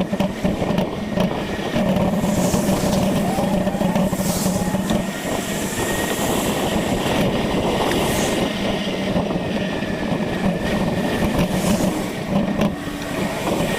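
Steady rushing road and wind noise of a bicycle being ridden along a road, with a low steady hum and a few brief swells of hiss every couple of seconds.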